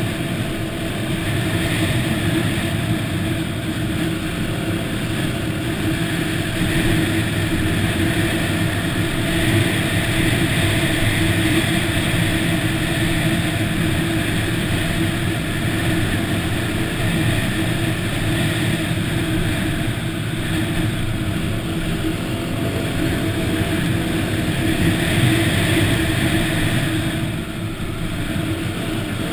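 Yamaha WR250 dirt bike's single-cylinder engine running steadily under way on the trail, heard from a camera mounted on the bike. Its loudness eases off slightly near the end.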